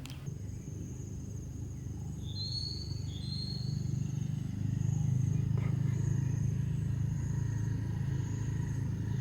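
Outdoor campsite ambience: a steady low rumble that swells about halfway through, a thin high steady tone, and two short rising chirps about two and a half seconds in.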